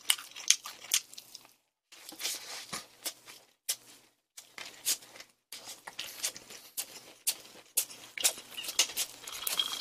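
Close-miked chewing of a mouthful of gimbap: irregular wet clicks and smacks of the mouth.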